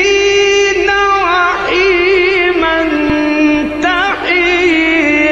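A male Quran reciter chanting in the ornamented mujawwad style: long held high notes that break into quick trilling turns, with scarcely a pause.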